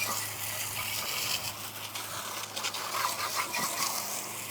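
A brush scrubbing a push lawn mower clean of old oil and grime: a continuous scratchy noise made of many quick strokes.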